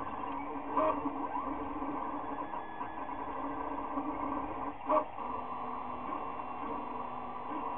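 Maker Select v2.1 (Wanhao i3) 3D printer running Klipper firmware, its stepper motors whining as the print head moves quickly while printing, the pitch shifting with each move. Two brief louder blips come about a second in and about five seconds in.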